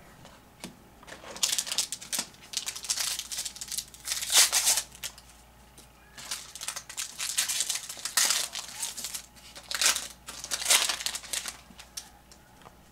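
Baseball card pack wrappers crinkling in repeated bursts as packs are torn open and handled. The crinkling dies down near the end.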